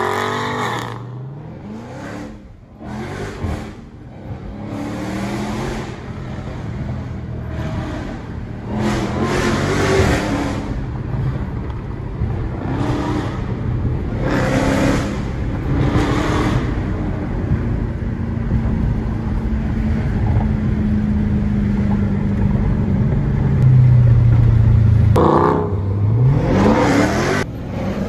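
Dodge Charger V8 engine heard from inside the cabin while driving. The revs climb at the start and again about 25 seconds in, with a steady drone between and several louder surges of throttle.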